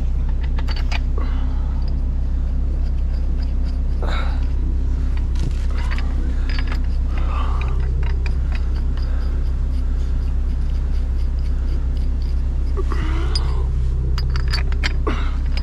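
A machine's engine idling steadily, with light metallic clinks and clanks over it.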